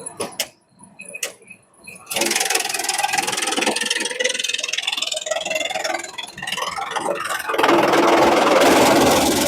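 Bamboo shredder machine starting up with a sudden rush of noise about two seconds in after a couple of clicks, then running steadily; the noise grows louder and rougher about three-quarters of the way through.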